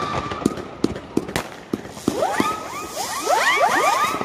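Fireworks going off: scattered sharp pops and bangs, with a steady firework whistle dying away at the start. From about halfway, a cluster of whistling effects follows, many short whistles overlapping, each rising in pitch.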